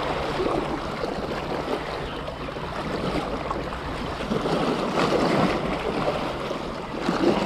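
Small sea waves washing and splashing against the breakwater rocks, with wind rumbling on the microphone.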